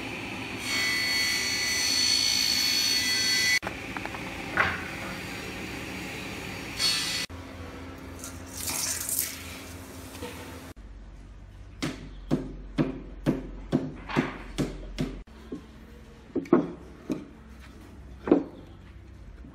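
Woodworking workshop sounds: a steady hiss with a faint whistling tone at first, a few single knocks, then a quick run of about a dozen sharp knocks on wood near the end.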